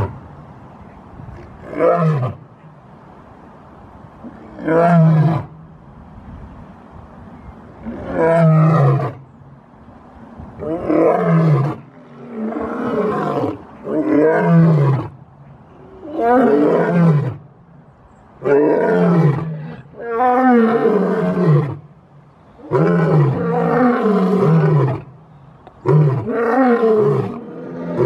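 Male lion roaring in a long bout: a string of calls about a second long, each falling in pitch, a few seconds apart at first and then coming faster and more evenly, roughly one every one and a half seconds, from about ten seconds in.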